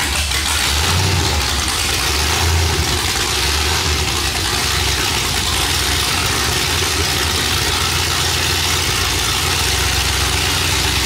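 Cammed 5.3 V8 idling loudly through long tube headers with no exhaust pipes or mufflers fitted after them, a steady deep rumble with open-header rasp.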